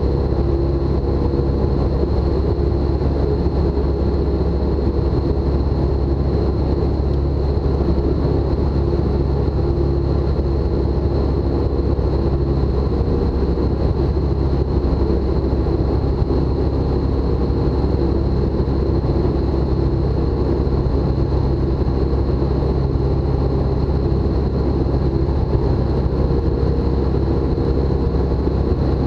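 Tecnam light aircraft's piston engine and propeller running steadily at cruise power, heard from inside the cockpit, with a thin steady high tone above it.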